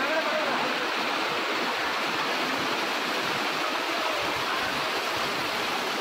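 Small waterfall cascading over rocks: a steady, unbroken rush of falling water.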